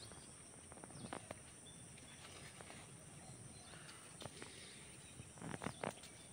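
Faint, steady high-pitched drone of insects, with a few short rustles and snaps of guava leaves and twigs as the branches are pulled: a couple about a second in and a quick cluster near the end.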